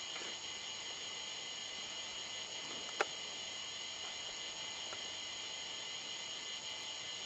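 A steady, high hiss with one sharp click about three seconds in.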